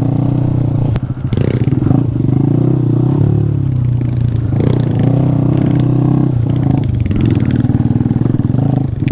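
Honda Grom's 125 cc single-cylinder four-stroke engine running off-road, its pitch rising and falling as the throttle is worked, with a brief dip about a second in. Short clattering and scraping of the bike over rough ground mixes in.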